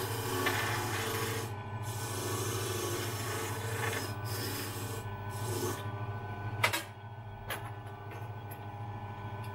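Key-duplicating machine's motor humming steadily while its cutter grinds a key blank in several passes that start and stop, with one sharp click about two-thirds of the way through.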